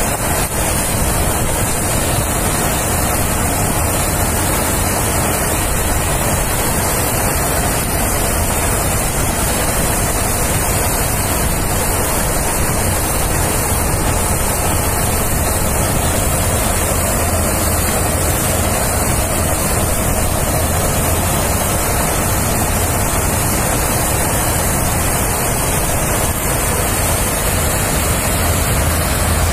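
KS 9300 combine harvester running steadily at work, cutting and threshing standing wheat: a loud, even mechanical din with a deep low hum underneath.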